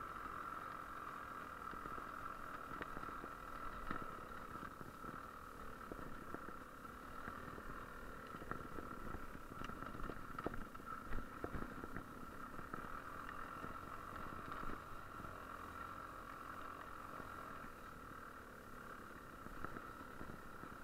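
GasGas EC300 two-stroke enduro bike engine running at a steady pitch while riding, faint and muffled, with a few sharp knocks from the bike over the trail.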